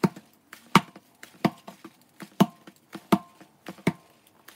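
A rolled log of bread dough being chopped into roll-sized portions on a countertop: six sharp chopping knocks, one about every 0.7 seconds.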